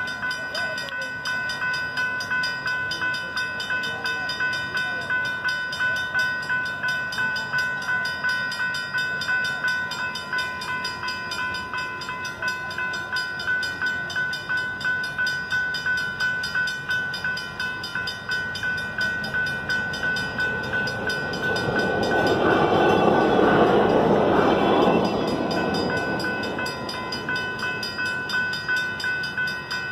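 MI railroad crossing bell ringing continuously in evenly repeated strokes. About two-thirds of the way through, a louder rushing noise of a passing vehicle swells and fades over a few seconds.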